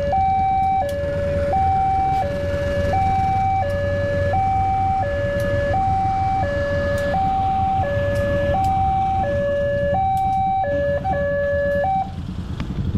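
A railway level-crossing warning alarm sounds a two-tone electronic signal, switching between a higher and a lower pitch about every 0.7 seconds, over the low rumble of a passing diesel locomotive. The alarm cuts off about a second before the end as the crossing clears and the barrier starts to rise.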